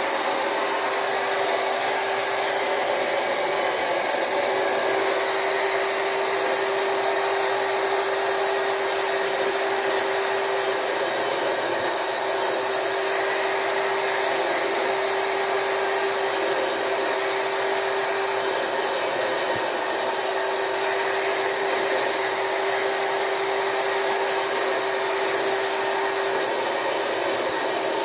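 Rug Doctor carpet extractor's vacuum motor running steadily with a constant whine, sucking up water, loosened dirt and pre-spray through the upholstery hand tool.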